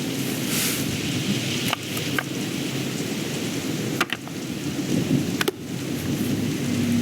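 Steady rain with a low rumble of thunder, a rainstorm ambience, with a few sharp clicks scattered through it.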